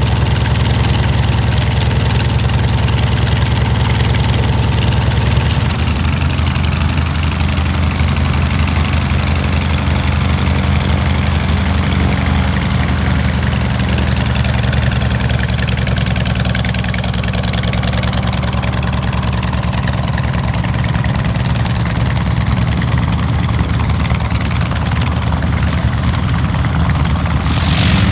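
North American T-28B Trojan's Wright R-1820 nine-cylinder radial engine idling steadily, propeller turning, while the aircraft taxis.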